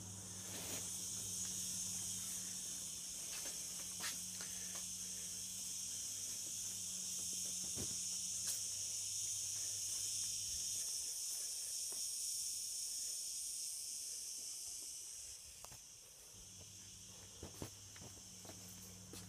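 Steady high-pitched shrill of cicadas that fades out about fifteen seconds in. A low electrical hum runs under it in the first half and returns near the end, with a few light clicks.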